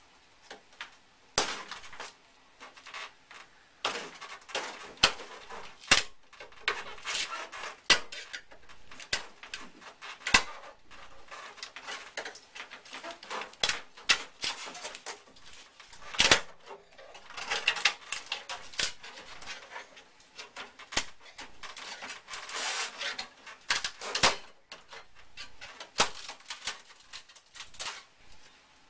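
Hand tools working sheet metal: irregular scratchy scraping and cutting strokes, some lasting a second or two, with metallic clicks and knocks between them.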